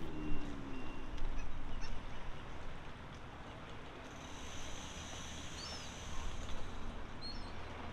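Outdoor ambience: a steady low wash of noise with a few faint bird chirps.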